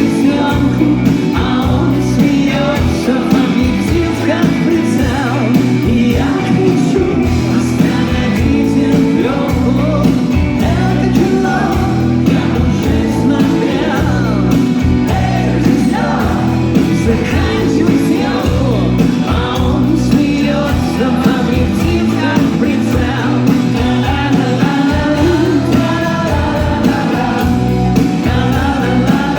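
Live rock band playing with singing over the music.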